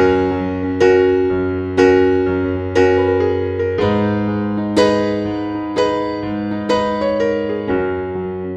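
Background music: slow keyboard chords struck about once a second, each fading away, over a low held note that changes every few seconds.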